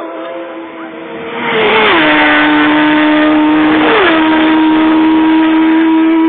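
Racing motorcycles passing at full speed, a loud engine roar that swells about a second and a half in. The engine note drops in pitch twice as bikes go by, around two seconds in and again around four seconds in.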